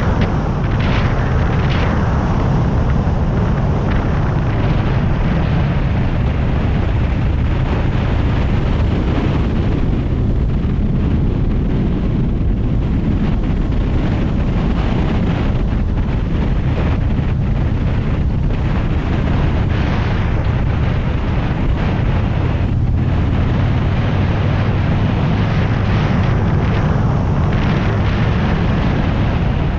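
A motorcycle running at cruising speed with wind rushing over the microphone, a steady low drone throughout.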